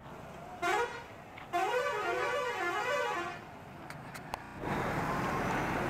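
A musical vehicle horn plays a short warbling tune of notes that rise and fall, starting about half a second in and stopping about three seconds in. Street traffic noise follows.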